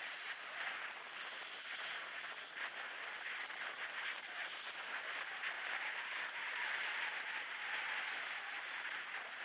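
Small waves breaking and washing up a shell beach, mixed with wind on the microphone. Noise reduction and a high-pass filter leave it a thin, steady hiss with no low rumble.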